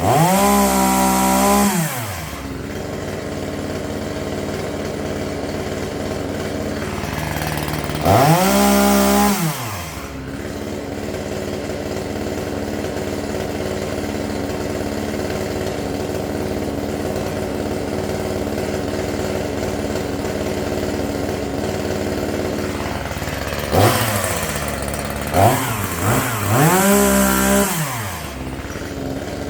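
Gas chainsaw idling between throttle bursts: revved up near the start, again about eight seconds in, then three quick revs close together near the end, the pitch rising and falling each time.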